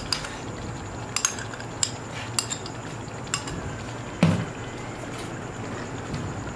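Chicken korma gravy sizzling in a wok while ground nut paste is scraped in: a few sharp clinks of a metal utensil against the container and pan, then a louder knock about four seconds in. A spatula then starts stirring the paste into the gravy.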